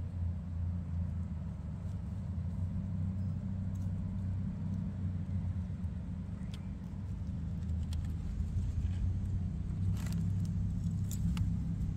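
A steady low engine-like hum runs throughout. Near the end come a few faint crinkles of a plastic garbage bag as an opossum noses into it.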